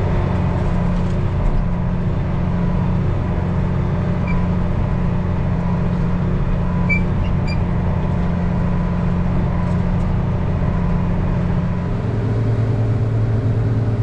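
Diesel engine of heavy farm harvest machinery running steadily under load, its tone changing about twelve seconds in.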